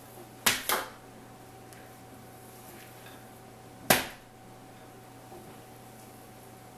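A spatula knocking against a glass mixing bowl and a foil-lined baking sheet while cookie dough is scraped out: two quick sharp knocks about half a second in and one more about four seconds in, over a faint steady hum.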